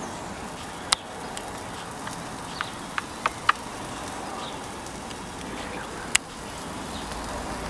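Steak sizzling on a metal grill grate over a firebox stove's fire: a steady hiss broken by about half a dozen sharp crackles and pops.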